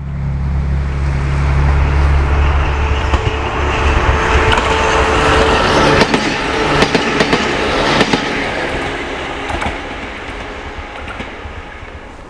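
A Sangi Railway train passing close by, with a steady low hum and wheels clacking several times over the rail joints. It is loudest in the middle and fades as the train moves away.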